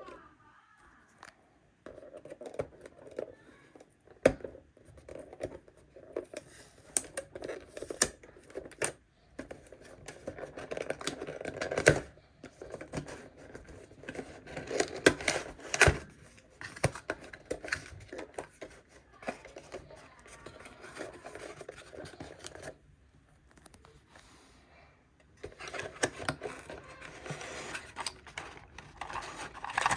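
Hands handling and unpacking computer parts: irregular scraping, rustling and tearing of packaging, with a few sharp clicks or knocks along the way.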